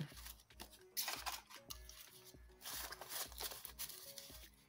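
Paper banknotes rustling and crinkling as a stack of dollar bills is handled and sorted, in two short spells, over faint background music with a steady beat.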